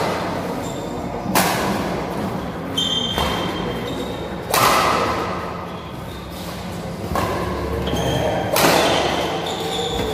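Badminton rally: rackets striking the shuttlecock five times, about every one and a half seconds, each sharp hit echoing in the hall, with sneakers squeaking on the court floor between shots.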